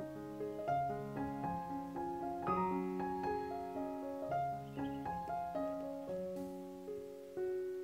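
Background piano music: a gentle melody of single notes over held bass notes.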